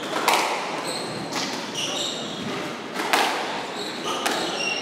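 Squash doubles rally: four sharp knocks of the ball off rackets and the court walls, each ringing briefly in the hall, with short high squeaks of shoes on the wooden court floor in between.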